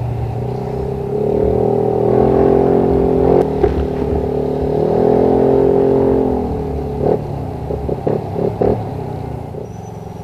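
Yamaha NMAX 155's single-cylinder engine through an Akrapovič full exhaust system with its silencer fitted, revved twice and let back down, each rev rising and falling in pitch. A few short sharp sounds follow as it drops back to a lower, steady run.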